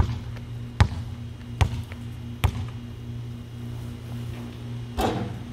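A basketball being dribbled, four bounces about 0.8 s apart, then a louder thud near the end.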